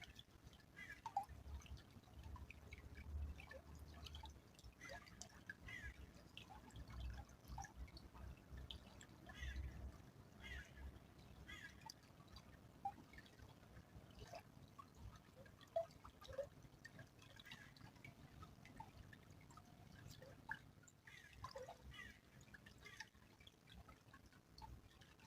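Small stream trickling, faint, with many short, scattered plinks and drips of water at irregular moments.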